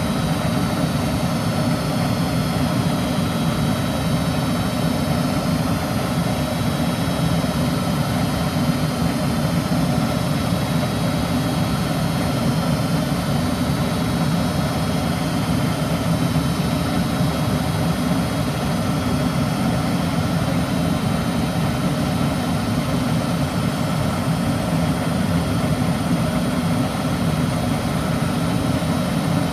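Goodman natural-gas furnace running: a steady, unbroken low rushing drone with faint high tones, no cycling on or off.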